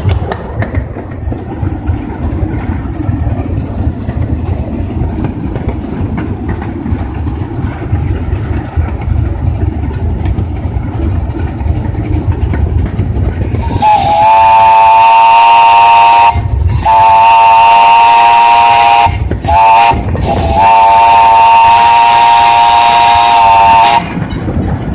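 Small steam locomotive rolling along the track with a low running rumble, then its whistle blowing four blasts, long, long, short, long: the standard signal for a grade crossing.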